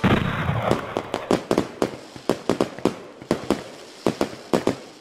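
Fireworks sound effect: a burst at the start, then a string of separate, irregular sharp pops and crackles that grow fainter toward the end.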